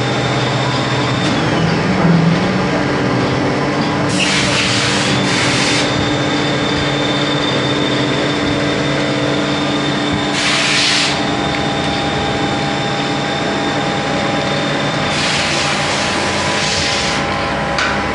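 CNC turning lathe (Hardinge T42 with servo turret) running a cut on a chucked metal part: steady spindle and machine hum with a thin high whine. Three bursts of hiss come about 4, 10 and 15 seconds in.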